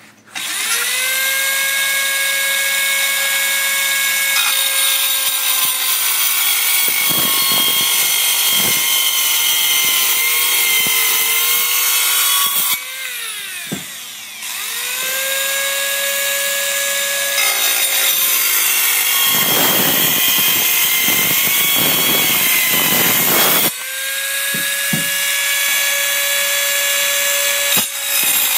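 Rockwell VersaCut mini circular saw with a 44-tooth metal-cutting blade sawing through aluminum square tubing: a high motor whine over a harsh grinding of blade on metal. The motor winds down about 13 seconds in and spins back up a second or so later, then stops and restarts again briefly near the end.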